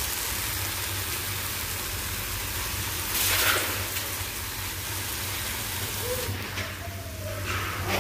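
Grated carrots for gajar ka halwa sizzling in a non-stick frying pan while being stirred with a plastic spatula: a steady hiss, louder for a moment about three seconds in, as the remaining moisture cooks off.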